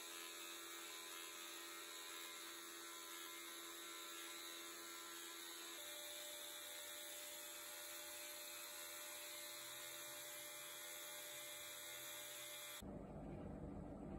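Belt grinder running with a small steel knife blank pressed against the belt, making a steady high grinding hiss over a faint motor hum; the hum's pitch shifts upward about halfway through. Near the end the sound cuts to a duller, noisier rustle.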